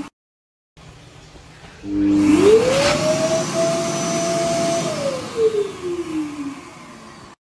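phs Airstream Vitesse hand dryer starting up about two seconds in, its motor whine rising quickly in pitch. It runs steadily for about two seconds, then winds down with a falling whine as it shuts off.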